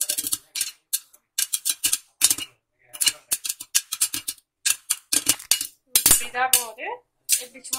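Popcorn kernels popping inside a closed aluminium pressure cooker with its whistle weight removed: many sharp, irregular pops a second, coming in quick clusters, with the popping in full swing.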